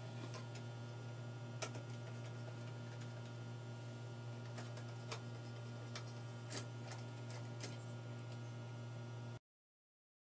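Scattered small clicks and taps of hands working at a porcelain ceiling lamp holder, over a steady low hum. The sound cuts off suddenly about nine seconds in.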